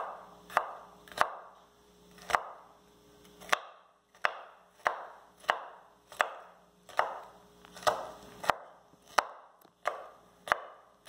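Kitchen knife dicing a green bell pepper on a wooden cutting board: a sharp knock of the blade on the board, about one and a half strokes a second.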